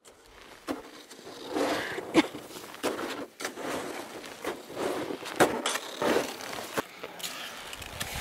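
Footsteps crunching in snow as a climber walks uphill, an irregular string of crunches about one every half second to second, with a few sharper clicks such as a trekking pole striking.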